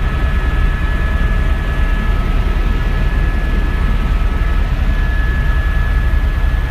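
Helicopter cabin noise in flight, heard from inside the cockpit: a loud, steady low rumble with two thin, steady high whining tones over it.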